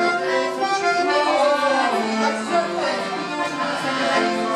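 Traditional Kurpie folk dance tune played by a small band of fiddle, accordion and clarinet together.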